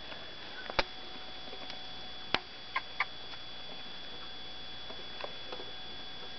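Pet hamster sneezing in a fit: tiny, sharp sneezes, one about a second in, then three in quick succession between two and three seconds in, with a few fainter ticks after.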